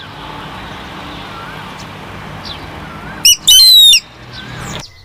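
Falcon calling: one loud burst of rapid, shrill high-pitched notes about three seconds in, over a steady background hiss with a few faint chirps.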